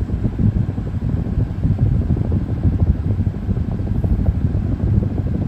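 Strong wind buffeting the microphone: a low, gusty rumble that rises and falls without a break.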